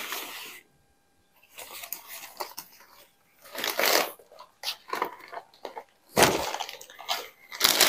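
Plastic grocery bags rustling and crinkling in irregular bursts as shopping is taken out of them, with a louder rustle and knock about six seconds in.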